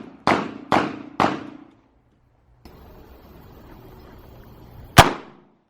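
Gunfire: a fast string of shots about two a second, the last three in the first second and a half, then after a pause a single louder shot near the end, each with a short ringing tail.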